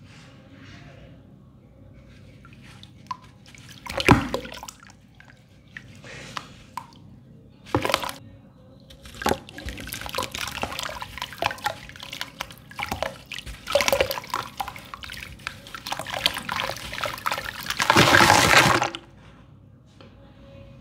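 Lumps of dry sand-cement crumbled by hand and dropped into a tub of water: a few separate plops and splashes, then a dense wet crumbling patter. The loudest part comes near the end, lasting about a second.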